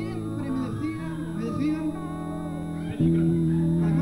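Live band music led by an electric guitar, picked notes over held tones; about three seconds in it turns louder with a sustained chord.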